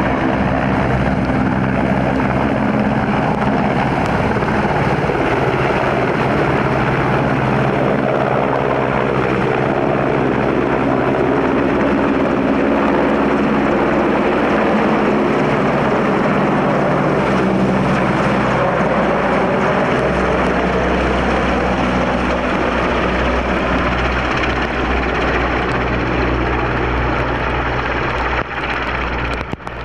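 Westland EH101 Merlin HM1 helicopter flying low overhead: its three turboshaft engines and five-blade main rotor run steadily. The low rotor throb grows stronger about twenty seconds in.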